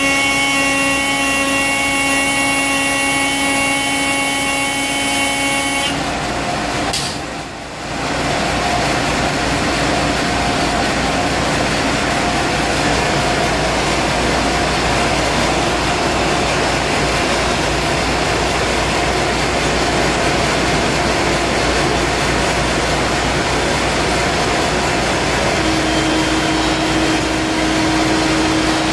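An acoustic (sonic) horn cleaner, driven by compressed air, sounds one steady pitched blast rich in overtones for about six seconds and then cuts off. The blast is meant to shake powder buildup loose from the hopper chute. After a short drop, a loud, steady rushing noise takes over for the rest of the time.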